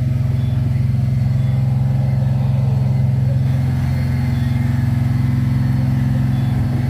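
A fishing boat's engine running steadily: an even, low drone that holds the same pitch and level throughout.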